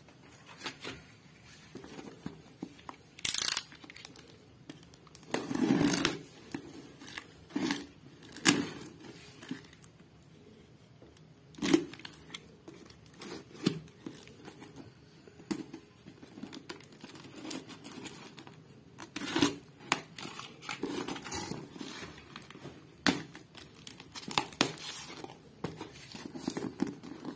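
Packing tape being torn and peeled off a taped cardboard box and the cardboard flaps pulled open. It comes in irregular bursts of tearing, several of them loud, with rustling and scraping of cardboard in between.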